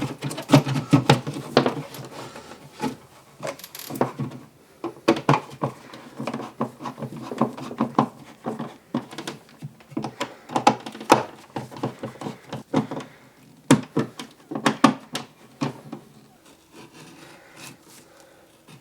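Irregular knocks, clicks and scraping of an old-work electrical box and its cable being worked into a drywall cutout by hand.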